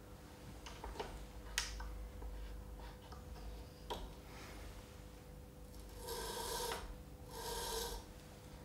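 A few light clicks and knocks as the chisel's jig and support are reset, then two short scraping passes, each under a second, of the chisel's edge across the Tormek T7's grinding stone.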